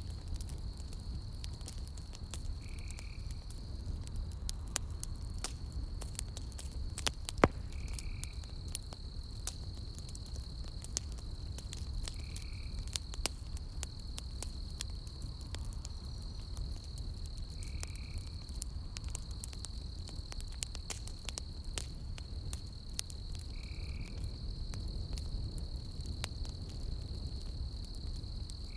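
Burning logs of a campfire crackling and popping, with one sharp loud pop about seven seconds in, over a low steady rush. Behind it runs a steady high trill, and a short call repeats every five seconds or so.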